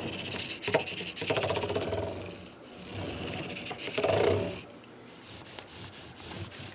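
Cloth rag rubbing back and forth along a guitar fretboard and over the frets, working in fretboard conditioner, in uneven swelling strokes.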